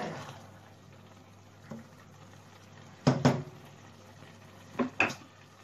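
A spoon knocking against the rim of a pot of biryani rice at the boil: two quick pairs of sharp clanks, about three seconds in and again near five seconds, over a faint steady background.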